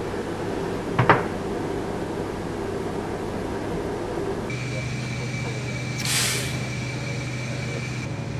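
Steady background hum with one sharp clink about a second in. After about four and a half seconds the hum turns into a lower, even drone with a thin high whine, and a short hiss sounds about six seconds in.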